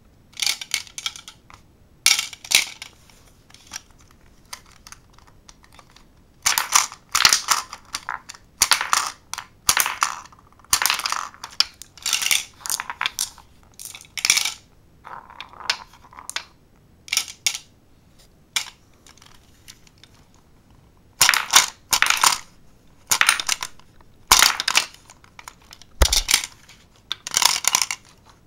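Glass marbles shot from a B-Daman toy launcher, rolling along a wooden board and clacking into LEGO brick targets and metal guide rails, in repeated bursts of clatter with short pauses between shots.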